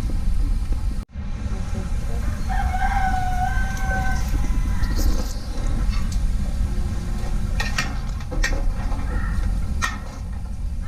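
A rooster crowing once, a long held call starting about two and a half seconds in, over a steady low rumble. A few sharp clicks follow near the end.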